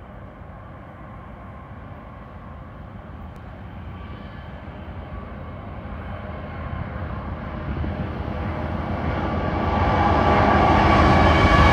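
Union Pacific diesel-electric locomotives leading a freight train on approach: a low engine rumble that grows steadily louder as they draw near, with the engines' pitched drone coming up strongly in the last couple of seconds.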